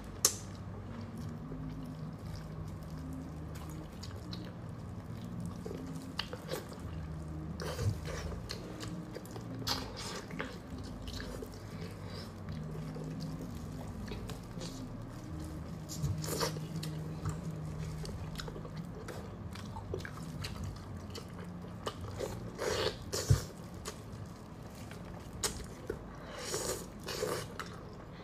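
Close-up eating sounds: a person chewing and gnawing braised meat, with wet lip smacks, sucking and short crunches and clicks, busier near the end.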